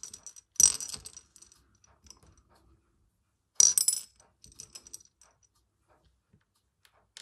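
Beads clicking against a china saucer as they are picked out of it by hand, with a faint ring after each click. Two louder clusters of clicks come about half a second and three and a half seconds in, with lighter scattered clicks between.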